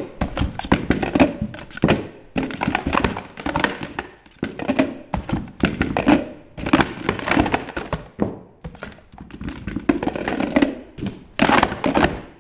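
Plastic Speed Stacks sport-stacking cups clattering as they are rapidly stacked up and down on a mat: quick runs of clacking broken by brief pauses between sequences.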